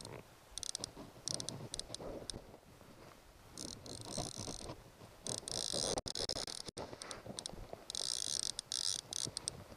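Fly reel's click-and-pawl ratchet buzzing in stops and starts, several spurts of up to about a second, as line runs through the reel while a hooked salmon is played. A low, uneven rumble lies underneath.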